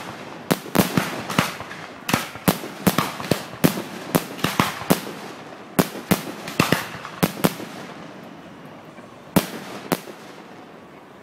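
Aerial firework shells bursting overhead: a quick run of sharp bangs for most of the first seven seconds, then two last bangs close together near the end.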